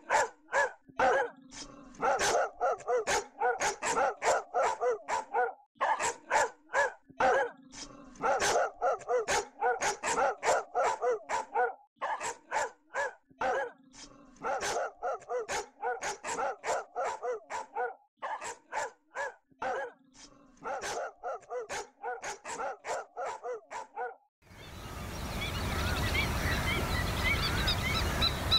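Free-ranging dogs barking rapidly and continuously, several barks a second, stopping abruptly about 24 seconds in. A steady outdoor hiss with bird calls, goose-like honks, follows.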